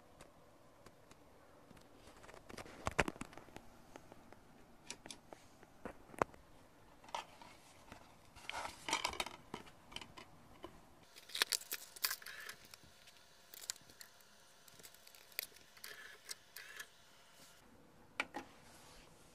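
Faint, scattered clicks and handling rattles from working a Sony CDP-591 CD player: its disc tray being opened and a disc handled, then front-panel buttons pressed.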